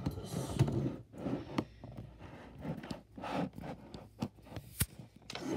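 Close handling noise: rubbing, scraping and irregular light knocks as the recording device is gripped and adjusted, with one sharp click a little before the end.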